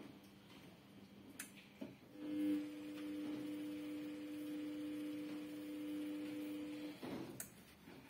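Samsung Eco Bubble WF1854WPC front-loading washing machine running a wash cycle: a steady hum sets in about two seconds in and stops about five seconds later, with a faint click before it starts and after it stops.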